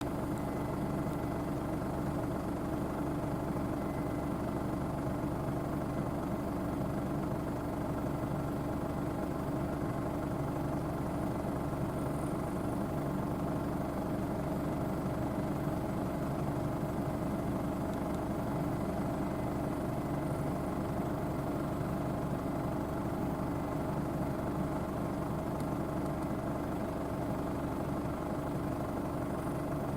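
Case IH Axial Flow 9240 combine running steadily under harvest load, its diesel engine and threshing machinery giving an even, unchanging drone.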